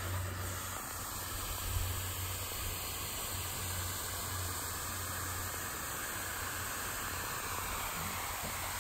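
Bee-shaped lawn sprinkler spraying a fine mist of water, a steady hiss, with a low steady rumble underneath.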